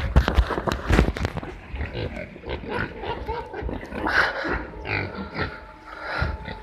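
Domestic pigs grunting and oinking in their pens, with a burst of sharp clattering knocks in the first second and a half.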